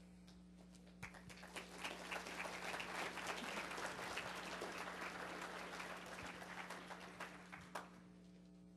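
Audience applauding: the clapping starts about a second in and dies away near the end.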